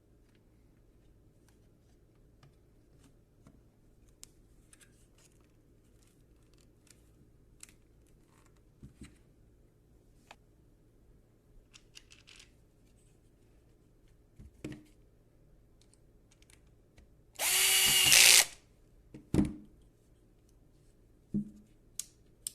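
Scattered light clicks and small knocks of parts being handled, then a small electric power-tool motor runs once for about a second, followed by a few sharp knocks.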